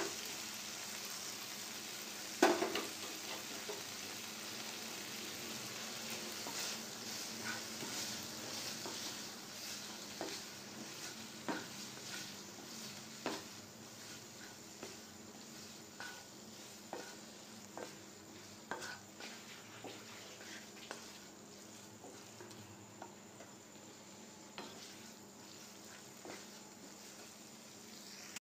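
Paneer cubes frying in masala in a non-stick pan, a steady sizzle, while a wooden spatula stirs them with scattered taps and scrapes against the pan. A louder knock comes about two and a half seconds in.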